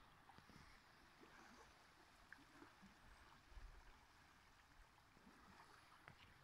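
Near silence: faint, gentle lapping of calm lake water against the shoreline rock.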